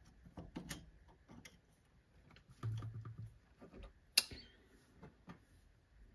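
Light metallic clicks and taps of the steel parts of a multifix tool post being handled and fitted onto a mini lathe's compound slide, with one sharper click about four seconds in.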